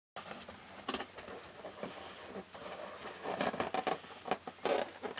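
Latex balloon being handled and pressed with both hands into wet acrylic paint on a canvas: soft rubbing with irregular small crackles and clicks. It starts abruptly just after the beginning and grows busier in the second half.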